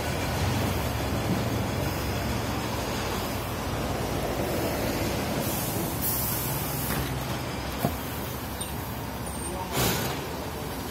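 City buses running in street traffic, their engines a steady low rumble, with short hisses of released air from the buses' air brakes about halfway through and again near the end.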